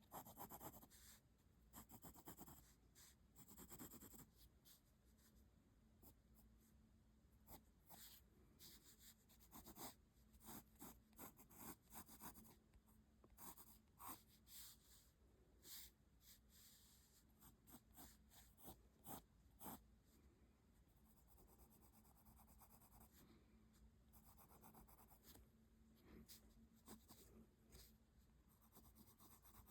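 Faint sound of a pencil on paper: many short scratching strokes, densest in the first two-thirds, giving way later to softer continuous rubbing, as in shading.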